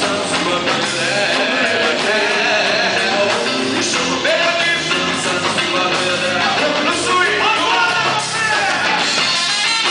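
Samba-rock band playing.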